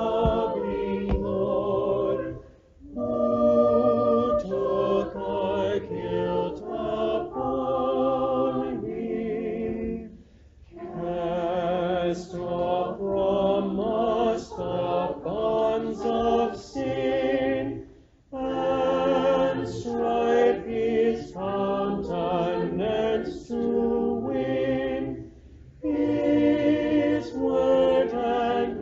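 Church choir singing in long phrases with brief breaks between them.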